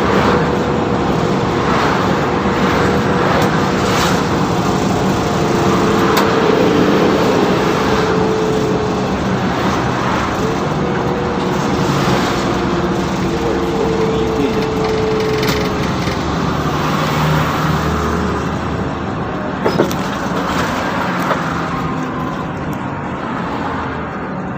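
Mercedes-Benz O530 Citaro city bus driving, with steady engine and road noise and a faint whine that slowly drops in pitch several times. One short knock comes near the end.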